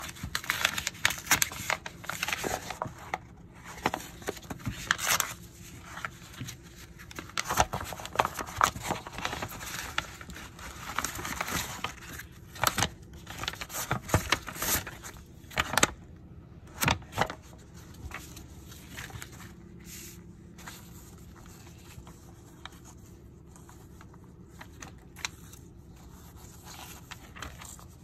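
Glossy paper coupon mailers and their envelope rustling and crinkling as they are handled and leafed through, in irregular bursts that are busiest in the first half and grow sparser after about 18 seconds.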